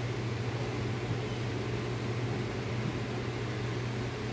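Steady low hum of a running appliance, with an even hiss over it.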